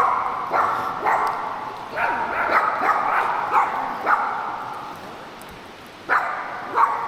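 A dog barking repeatedly, about one to two barks a second with each bark trailing off, then a pause of about a second before it starts again near the end.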